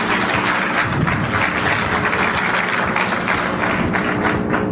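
Audience applauding: a dense, loud patter of many hands clapping that dies away near the end, over a steady low hum on the recording.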